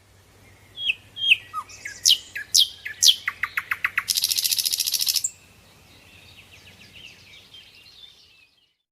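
Bird calls: a string of sharp, high downward-sweeping notes, then a fast run of clicks running into a buzzy trill for about a second, followed by faint chattering that fades out.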